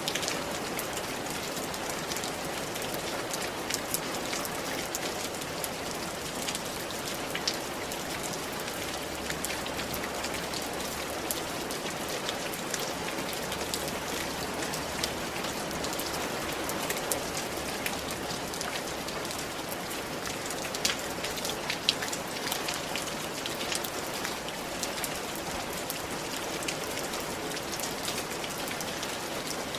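Steady rain falling on a tile roof: a dense even patter with scattered louder individual drops.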